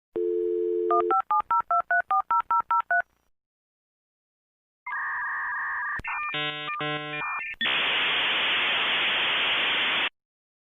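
Dial-up modem connecting to the internet. A dial tone sounds for about a second, then about a dozen quick touch-tone digits are dialled. After a pause come the modem's handshake tones, ending in a loud hiss that cuts off suddenly.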